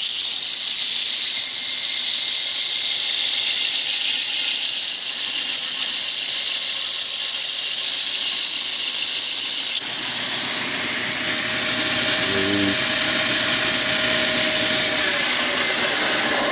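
A steel knife blade being ground on a homemade 2x72 belt grinder: the abrasive belt hisses steadily against the blade, with a brief break about ten seconds in.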